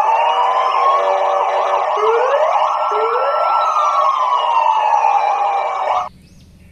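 Police car sirens, several wailing at once in overlapping rising and falling tones, cutting off suddenly about six seconds in.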